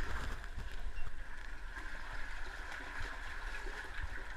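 Spring water running and gurgling steadily, with a short knock about a second in.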